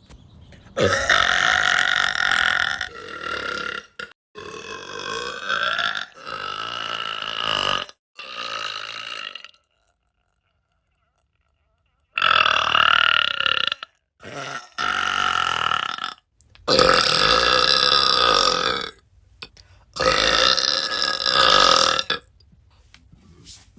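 A woman burping: a run of about ten long, loud belches one after another, each lasting one to three seconds, with a silent break about ten seconds in.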